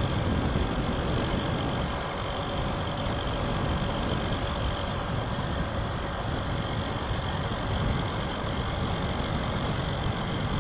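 Heavy wind noise buffeting an external action-camera microphone inside a motorcycle helmet with the visor open, riding at about 60 kph, a steady low rumble with a motorcycle running beneath it. The microphone has no wind protection, so the wind drowns the recording.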